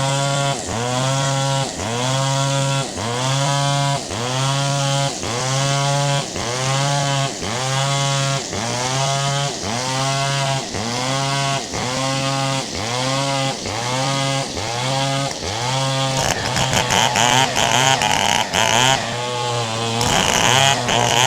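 Chainsaw engine running under load, its pitch dipping and recovering about once a second as it bites into wood and is eased off. About 16 s in it turns rougher and harsher as it keeps cutting.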